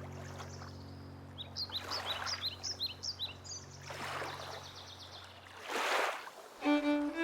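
Waterfront ambience with a bird giving a quick series of short, high chirps, over a soft held music chord that fades out. A brief rush of noise comes near the end, and then new music with a clear melody begins.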